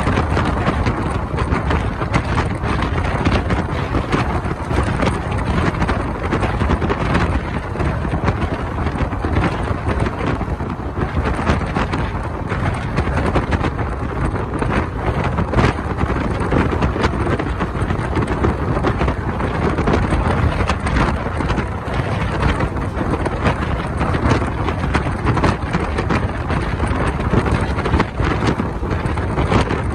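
Wind buffeting the microphone held out of a moving Indian Railways passenger coach, over the coach's steady running noise on the rails.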